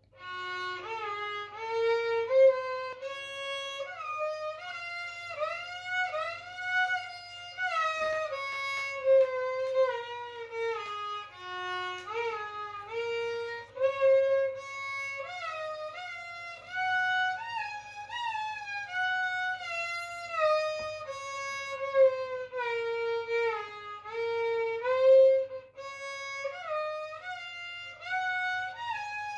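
Solo violin played with the bow: a single melody line of sustained notes that rises and falls, with smooth slides between some notes.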